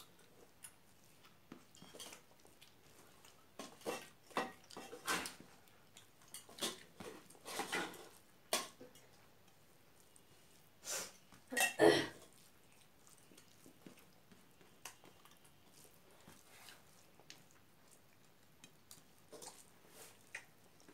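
Hand mixing rice and curry on a steel plate: scattered short clicks and scrapes of fingers and food against the metal, with two louder knocks near the middle and only faint ticks after.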